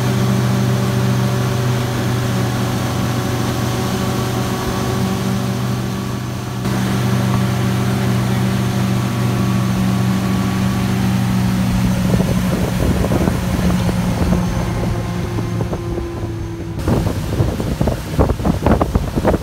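Pontoon boat's motor running steadily at cruising speed with a constant hum, over rushing water and wind. Wind buffets the microphone in gusts near the end.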